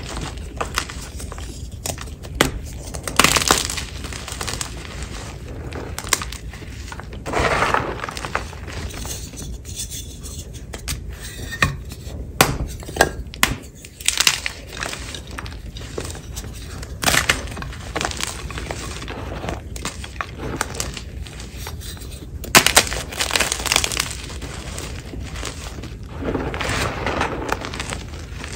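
Soft gym chalk blocks crushed by hand in a bowl of chalk powder: irregular sharp crunches and snaps as pieces break, with a few longer soft crumbling rushes, one near the end, as handfuls of powder are squeezed.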